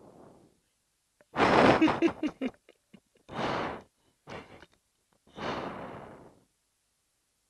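Breathing through an MBU-12 pilot's oxygen mask. A loud rushing breath with rattling clicks comes about a second and a half in, followed by three shorter breaths, the last one trailing off.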